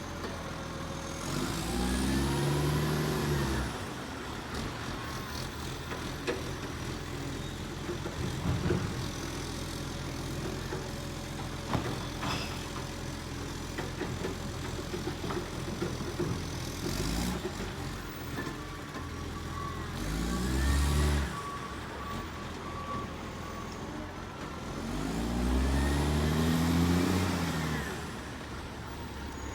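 Garbage truck's diesel engine idling and revving up and back down three times: once near the start, briefly about two-thirds through, and longer near the end. A single sharp knock comes about twelve seconds in.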